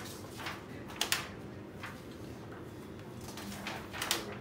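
Handling noises: short rustles and a few sharp clicks, the loudest about a second in and near the end.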